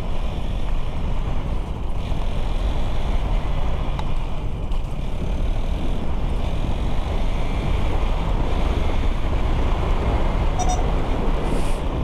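Hero XPulse 200's single-cylinder engine running at a steady cruise, mixed with wind rushing over the camera microphone.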